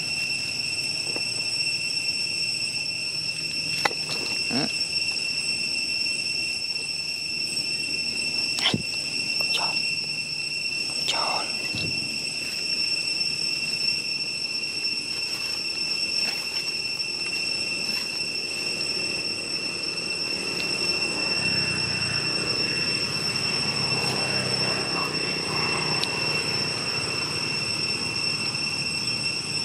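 Insects keep up a steady, high-pitched drone. Faint voices rise in the background later on, and a few short clicks or rustles break in.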